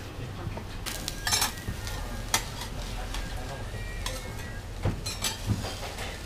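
Okonomiyaki frying on a hot tabletop griddle, a steady sizzle, with two metal spatulas scraping and clicking against the griddle plate several times as it is shaped.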